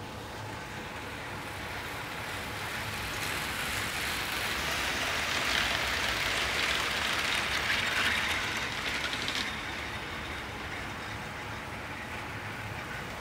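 Hornby live steam model locomotive Papyrus and its long train of coaches running on the layout: a steady hissing rush of steam and rolling wheels that grows louder as the train comes close, then drops back about nine and a half seconds in.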